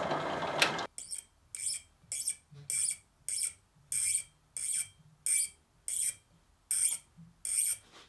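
A drill press runs and cuts off suddenly about a second in. Then a small tap, turned in a T-handle tap wrench, cuts threads into a brass disc held in a vise, giving a short high squeak with each turn. There are about a dozen squeaks, evenly spaced roughly two-thirds of a second apart.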